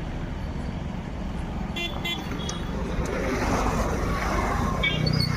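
Steady road traffic rumble, with short high horn toots about two seconds in and again near the end.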